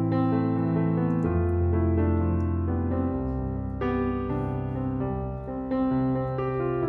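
Background piano music, with held chords that change every second or so.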